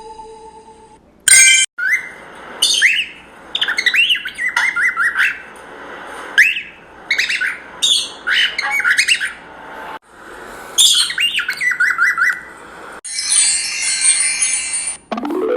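Cockatiel chirping in quick runs of short upward-sliding calls, with a long harsh, raspy call near the end. A sharp click sounds just after a second in.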